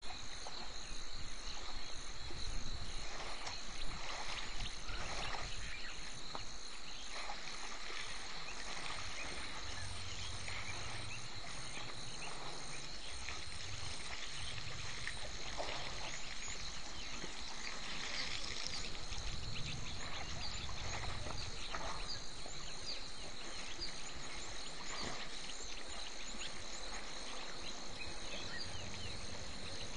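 Bush ambience: a steady high-pitched insect drone with frogs calling and scattered chirps over it.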